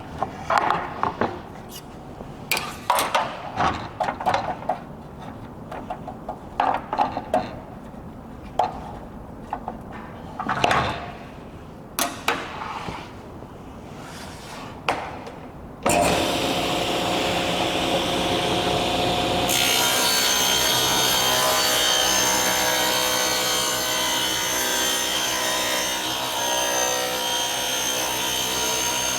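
Scattered knocks and clatter of wood and saw parts being handled, then about sixteen seconds in a table saw switches on and runs with a steady hum. A few seconds later the blade starts ripping through a board, adding a steady hissing sawing noise that continues.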